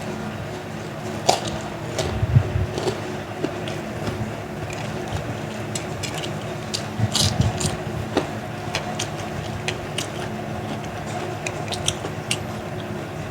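Eating fried nuggets and kerupuk crackers: chewing with scattered sharp crunches and clicks, the strongest about a second, two seconds and seven seconds in. A steady background hum of several fixed tones runs underneath.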